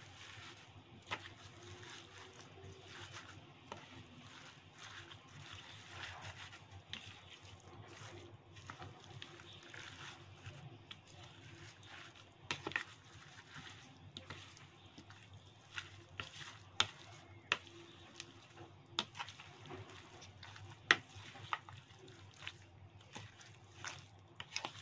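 Metal spoon stirring a wet, chunky spice paste with basil leaves and fish pieces in a bowl: soft wet squelching and scraping, broken now and then by sharp clicks of the spoon against the bowl.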